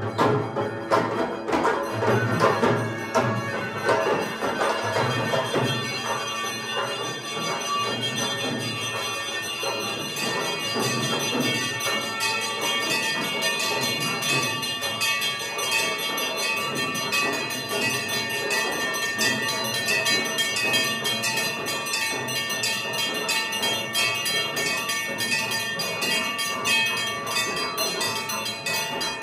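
Hindu temple bells rung rapidly and without pause during the puja, a dense layer of many overlapping ringing tones. A drum beats underneath for the first few seconds, then fades.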